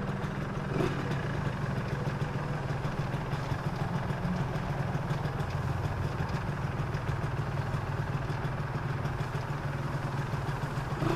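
Yamaha 125ZR's two-stroke single-cylinder engine idling steadily through its stock exhaust, running smooth like a new bike.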